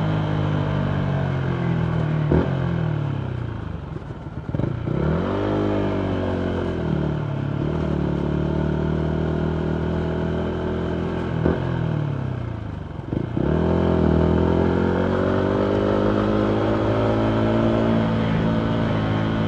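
Yamaha MT125's single-cylinder four-stroke engine through a full Akrapovic exhaust while riding. Twice the revs drop off the throttle with sharp pops and crackles, then rise again as it accelerates. In between it holds a steady cruising note.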